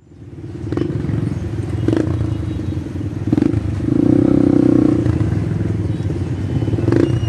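Motorcycle and tricycle engines running in slow stop-and-go traffic, with a few short knocks. The sound fades in over the first second, and an engine grows louder for about a second near the middle.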